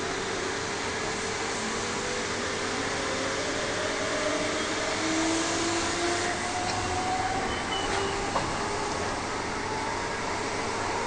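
Interior running noise of a Perth electric suburban train: a steady rush, with a motor whine that climbs steadily in pitch over several seconds as the train gathers speed.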